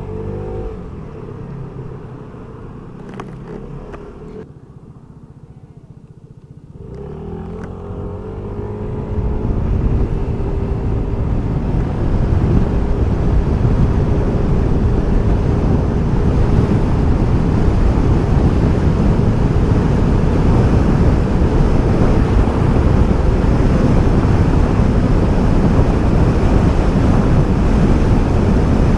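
Vespa GTS 125's single-cylinder engine slows and drops to a quiet idle, then accelerates at full throttle from a standstill about seven seconds in. The pitch sweeps up quickly and then holds steady as speed builds toward 100 km/h, with wind rush growing loud.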